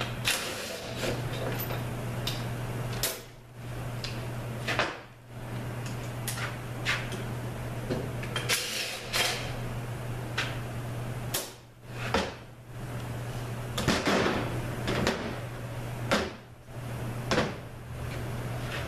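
Scattered metal clanks and knocks of an automatic transmission's case, parts and hand tools being handled on a steel workbench during teardown, over a steady low hum.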